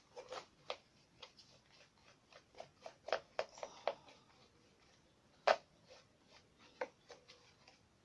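Paintbrush working an ink wash onto a paper model boat: a string of small, irregular dabs and scratchy strokes, with one sharper tap about five and a half seconds in.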